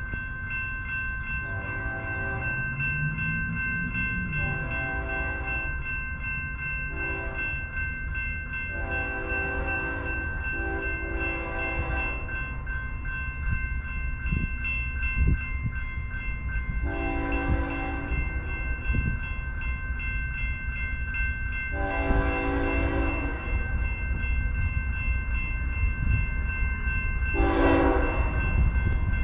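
BNSF freight locomotive horn sounding a series of blasts, several close together at first, then three spaced ones, over a steady high ringing of grade-crossing bells. The low rumble of the approaching freight train grows louder toward the end.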